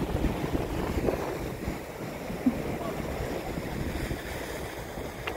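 Wind buffeting the microphone over the steady wash of sea surf breaking on a rocky shore, with one short knock about two and a half seconds in.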